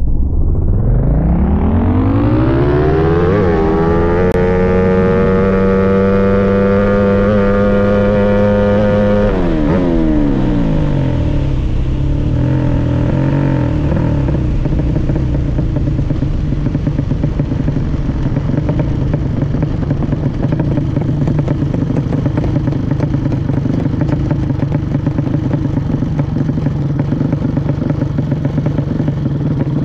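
Drag-racing motorcycle engine revving. Its pitch drops low right at the start, climbs over about four seconds and holds at high revs for about five seconds. About ten seconds in it falls back, and for the rest of the time the engine runs at a rough, uneven idle.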